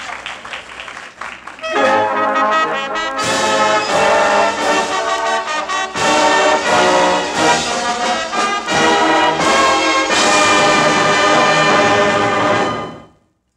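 High school symphonic band playing a brass-led passage, soft at first, then coming in loudly at full strength after about two seconds and breaking off abruptly near the end.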